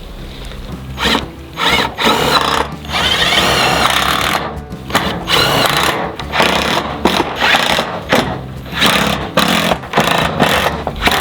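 Background music with a pulsing beat.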